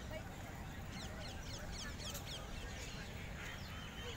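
Birds calling in the trees: a rapid run of short, high falling chirps about a second in, with scattered chirps near the end, over a steady low rumble.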